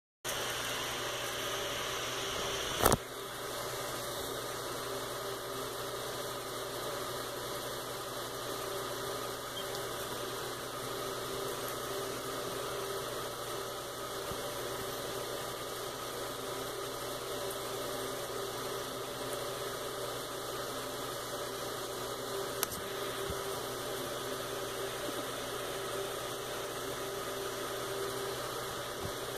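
A steady low hum and hiss of background machinery noise, with one sharp knock about three seconds in and a much fainter tick near the end.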